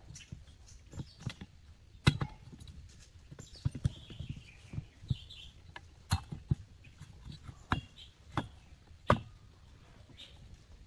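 Irregular knocks and sharp clicks of metal parts as a two-stroke chainsaw's finned cylinder is worked down over the piston onto the crankcase, the sharpest about two, six and nine seconds in.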